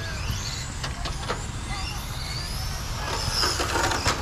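Radio-controlled cars running on an asphalt track: several high-pitched motor whines that rise and fall as the cars speed up and slow down, with a few sharp clicks over a steady low rumble.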